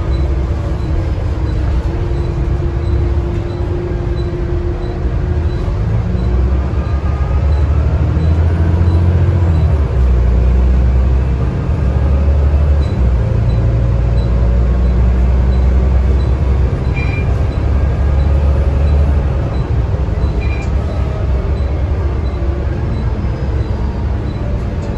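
Volvo B9TL double-decker bus's nine-litre diesel engine and road noise heard from inside the passenger cabin while under way. The engine note grows louder and heavier from about a quarter of the way in and eases off after the middle. Near the middle come two short high chirps.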